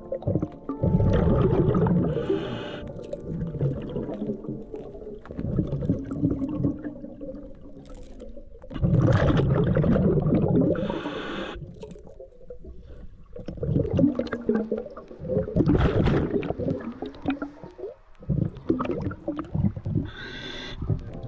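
Scuba diver breathing through a regulator underwater. Each exhalation gives a low rumbling surge of bubbles lasting a second or two, and each inhalation a short hiss through the regulator; the cycle comes roughly every nine seconds.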